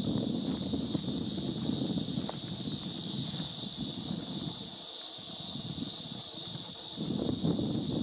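A steady, high-pitched chorus of insects, a continuous shrill hiss with a faint even pulse, over a low rumble that eases off briefly about halfway through.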